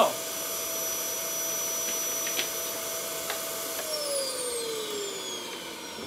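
Upright vacuum cleaner running with a steady whine, then from about four seconds in its pitch falls steadily as the motor winds down.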